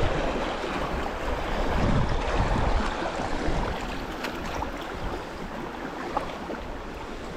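Creek water rushing around a kayak as it runs fast water, loudest in the first three seconds and then easing, with wind buffeting the microphone.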